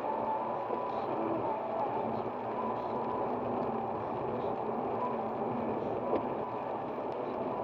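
Steady road noise heard from inside a car cruising on a wet motorway in rain: tyre hiss on the wet surface with engine and wind hum. A single sharp tick comes about six seconds in.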